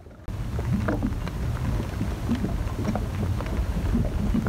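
Wind buffeting the microphone: a steady low rumble that starts suddenly a moment in, with scattered light clicks and taps over it.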